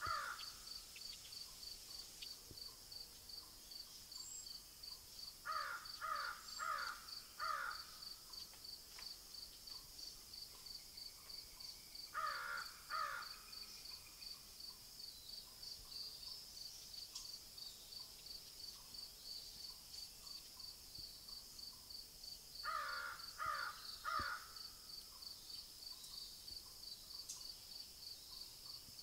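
A bird calling in short series of two to four calls, repeated every several seconds, over a steady, fast-pulsing insect chorus.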